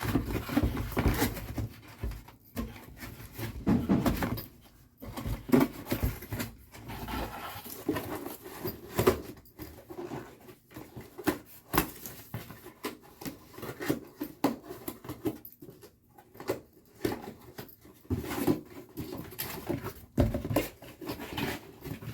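Cardboard box being torn open and handled: irregular ripping, rustling and scattered knocks.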